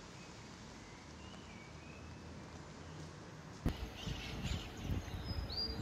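Quiet outdoor ambience with a few faint bird chirps. About three and a half seconds in, it switches abruptly to louder outdoor noise with a low uneven rumble, and a bird call sweeps downward in pitch near the end.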